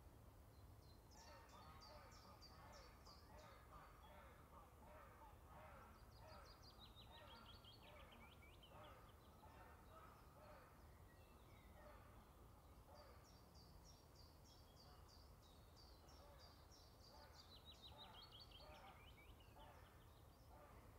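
Faint chorus of songbirds in woodland, with several birds singing and calling, including rapid trills that fall in pitch. A steady low rumble runs beneath.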